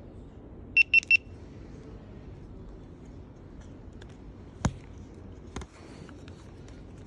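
GoPro camera beeping three quick times, one high steady tone each, as its top button is pressed. Two sharp clicks follow a few seconds later as the camera and Karma Grip are handled.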